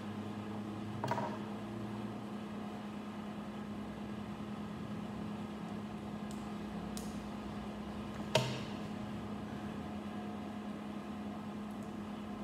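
Small plastic building-brick pieces clicking as they are handled, pressed together and set down on a wooden table: a few short clicks, the loudest about eight seconds in. A steady low hum runs underneath.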